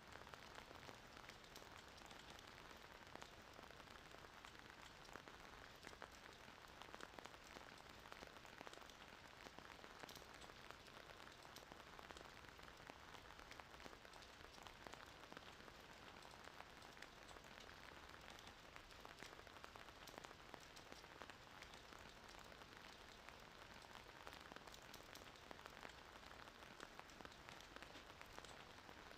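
Near silence: a faint, steady hiss with fine crackle, with no rhythm of breathing or snoring in it.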